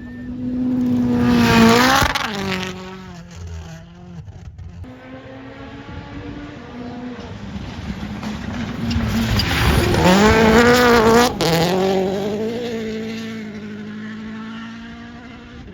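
Rally car engine at full throttle passing on a stage, its pitch rising and falling through gear changes, loudest about two seconds in and again around ten seconds in, with a sharp pop just after the second peak.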